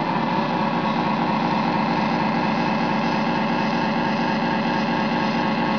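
Model tug's diesel sound system playing a simulated marine diesel engine, running steadily at an even pitch.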